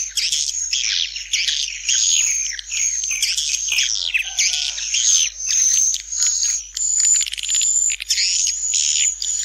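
Edible-nest swiftlet calls: dense, continuous twittering made of many chirps sweeping down in pitch over a steady high buzz. This is a swiftlet call-and-roost ('panggil inap') lure sound of the kind played from a swiftlet house's tweeters to draw the birds in.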